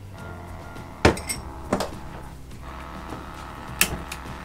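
Four short, sharp clicks and clinks of hard objects, the loudest about a second in and another near the end.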